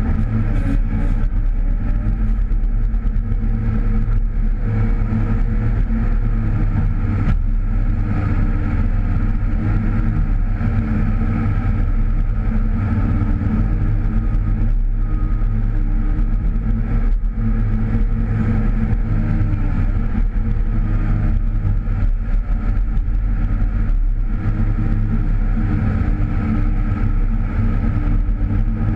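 Komatsu PC308 hydraulic excavator's diesel engine running steadily under load as it digs and swings loads of soil into a dump truck, heard from inside the cab.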